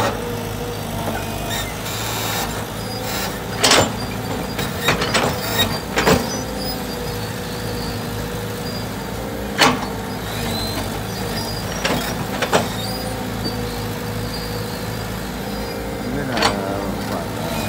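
Tracked excavator's diesel engine running steadily with its hydraulics working as the bucket churns wet concrete in a steel mixing box. Several sharp clanks of the bucket striking the box, the loudest about 4 and 10 seconds in.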